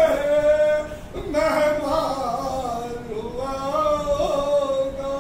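A man chanting a nauha (Shia lament), unaccompanied, drawing out long wavering notes with a short break about a second in.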